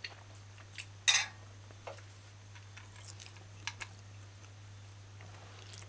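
A few faint, scattered clicks and scrapes of a metal fork against a ceramic plate, over a low steady hum.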